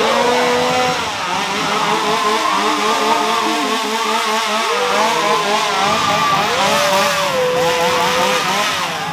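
Engines revving up and down over and over, more than one at a time, each gliding up to a held pitch and dropping back.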